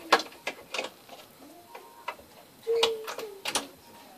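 Scattered sharp clicks and light knocks from a washing machine's plastic hoses and power cable being handled and fed into place, about a dozen irregular ticks over a few seconds.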